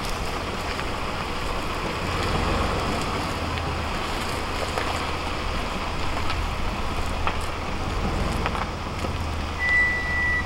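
A 2010 Jeep Liberty's 3.7-litre V6 running at low speed as it pulls a small camper trailer slowly across a dirt campsite, a steady low rumble under an even hiss. A short, steady high-pitched tone sounds near the end.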